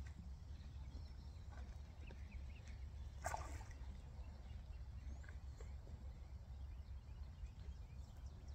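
Faint outdoor ambience: a steady low wind rumble with scattered short bird chirps, and one brief louder sound about three seconds in.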